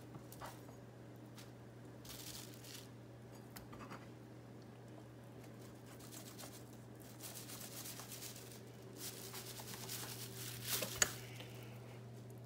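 Soft scraping and tearing of a knife and metal spoon working raw pigfish fillets on a plastic cutting board, with plastic sheeting crinkling. Two sharp clicks come near the end, over a steady low hum.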